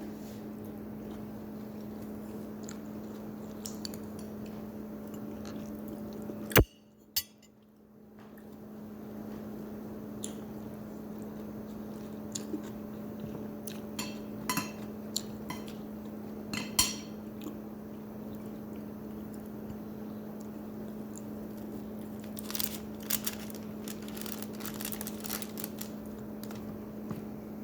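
Occasional clinks and taps of cutlery against plates and dishes during a meal, over a steady low hum. A sharp click about six and a half seconds in is followed by a brief drop to near silence.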